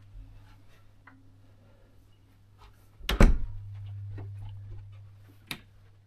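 A cupboard door shut with one loud thunk about three seconds in, followed by a low hum for about two seconds and a light click near the end.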